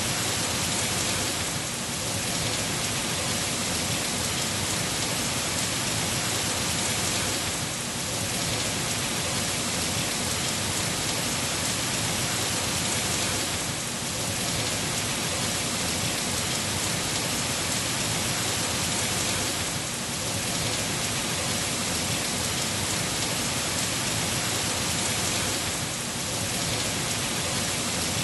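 Heavy rain pouring steadily, a dense even hiss, dipping slightly in level about every six seconds.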